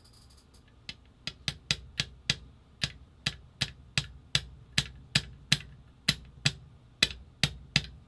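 A hand tool striking a metal part of a paintball marker in a steady series of about nineteen sharp taps, two or three a second, starting about a second in. The part is stuck and being knocked to work it loose.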